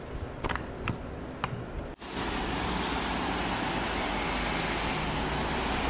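Three light clicks as the camera is handled, then, after a sudden cut, a steady rushing outdoor noise from a balcony overlooking a tree-lined road.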